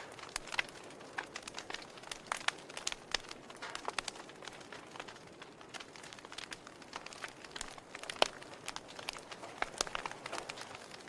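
Wood fire crackling in a fireplace: irregular sharp pops and snaps over a soft hiss, the loudest snap about eight seconds in.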